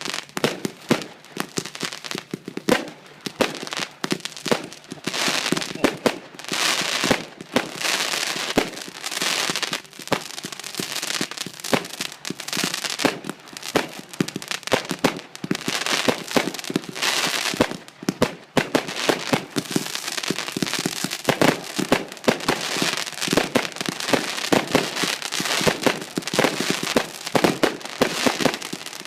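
Consumer fireworks battery firing: a continuous rapid run of shots and bangs mixed with crackling effects, without a break.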